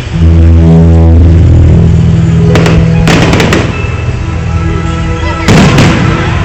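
Fireworks bursting with sharp bangs and crackling, about two and a half to three and a half seconds in and again about five and a half seconds in, over loud music with a heavy steady bass.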